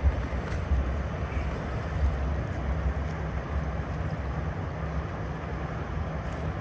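Low, steady rumble of the car carrier Auto Achieve's machinery as the ship passes close by, with wind buffeting the microphone in irregular low gusts.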